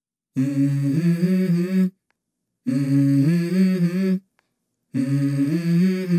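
Background music: a wordless hummed vocal line in three short phrases, each cut off abruptly, with dead silence between them.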